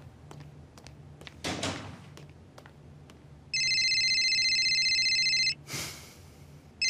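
Mobile phone ringing: a steady electronic ring of several pitches lasting about two seconds, followed by a short swish, with the next ring starting at the end.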